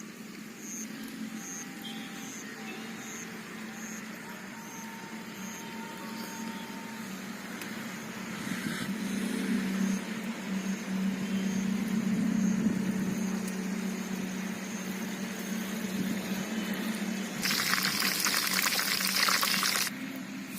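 Whole chicken frying in a pan of oil, a steady bubbling sizzle, with a louder hissing burst about three seconds before the end. A faint high ticking, about two a second, runs through the first half.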